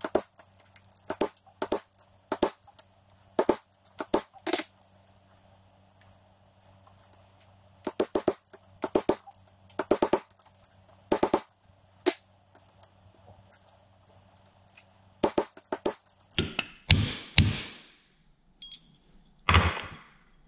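Hammer striking a steel punch to drive a gear and synchronizer assembly down the tight-fitting splined shaft of a Toyota W52 five-speed manual transmission: sharp metallic taps, singly and in quick bunches with short pauses, and a few louder knocks near the end as the part seats.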